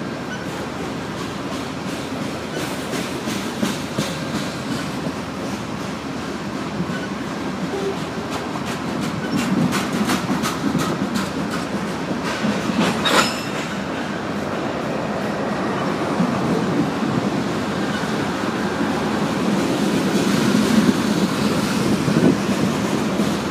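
Loaded BNSF covered grain hopper cars rolling past, their steel wheels clicking over rail joints over a steady rumble. The clicks come thickest around the middle, with one sharp metallic clank about halfway through.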